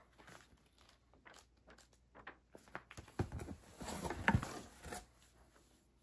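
Hands rummaging in a cardboard box and handling the items in it: a run of light knocks and rustles, busiest and loudest about three to five seconds in.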